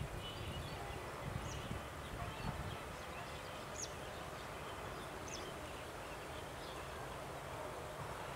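Several short bird chirps over a steady low rumble from a diesel locomotive still far off down the line, approaching slowly.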